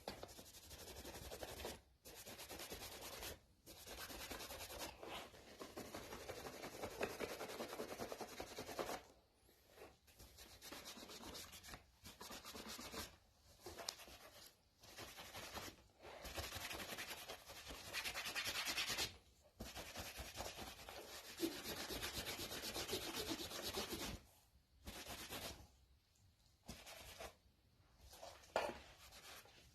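A cloth rag rubbing over a vegetable-tanned leather pouch, working in black dye and wax. The rubbing comes in runs of a few seconds, broken by short pauses.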